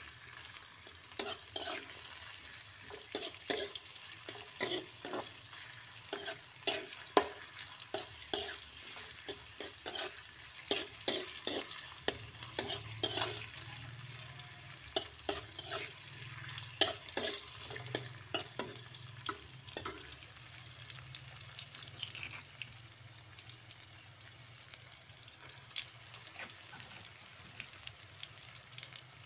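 Sliced onion and aromatics sizzling in hot oil in a wok while being stir-fried, with frequent sharp clacks and scrapes of a metal spatula against the pan. The clacks come thick for the first twenty seconds or so, then thin out to a steadier sizzle.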